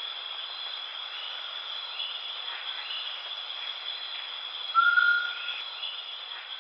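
Steady high chorus of forest insects with a few faint chirps. About five seconds in comes one loud whistled bird call, under a second long and rising slightly.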